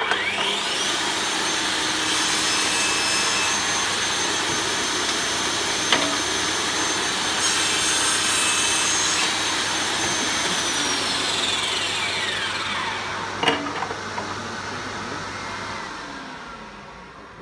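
Mafell ERIKA pull-push table saw spinning up with a rising whine, running steadily as the blade cuts a miter through a small wooden board, then winding down with a falling whine near the end. Two sharp knocks, about six and thirteen and a half seconds in.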